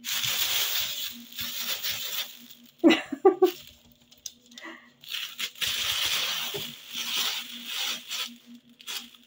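Thin plastic carrier bag rustling and crinkling as a cat paws at it, climbs onto it and pushes inside, in two long stretches of rustling with a lull around the middle.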